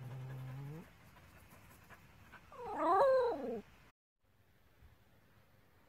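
A dog vocalising. Within the first second a low, drawn-out moan rises and stops. About 2.5 s in comes a louder whining howl, about a second long, whose pitch wavers up and down. The sound cuts off suddenly about 4 s in.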